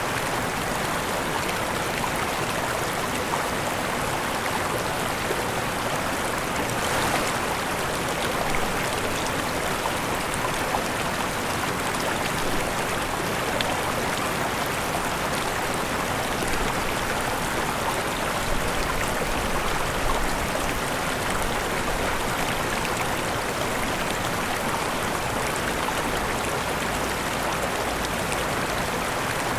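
Falling water rushing and splashing in a steady, unbroken wash of noise, with a slight swell about seven seconds in.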